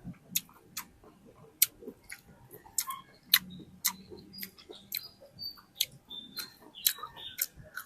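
Close-miked mouth sounds of someone eating juicy fruit: irregular sharp wet clicks and smacks of chewing, about two a second.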